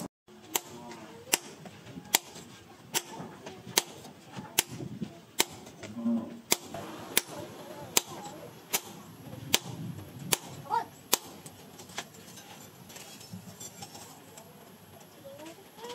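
Hand hammer striking a hot-cut chisel held in tongs, cutting into a red-hot steel motorbike sprocket on an anvil: sharp blows about every 0.8 s, which stop about eleven seconds in.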